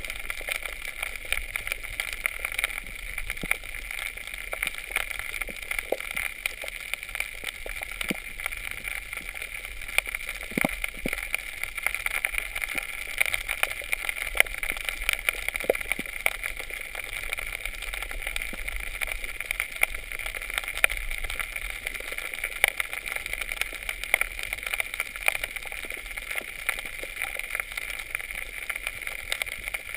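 Underwater reef ambience picked up by a camera under water: a steady hiss with a constant crackle of short, sharp clicks scattered through it.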